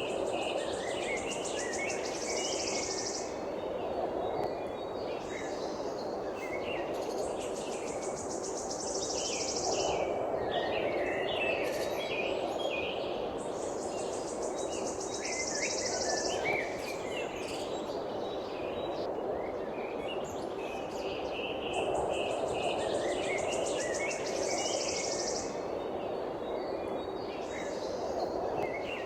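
Birds chirping and tweeting in short scattered calls, with a high buzzing trill lasting about three seconds that comes four times, over a steady background noise.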